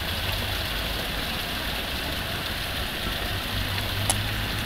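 Heavy rain falling steadily, a constant hiss with a low rumble underneath and a single sharp tick near the end.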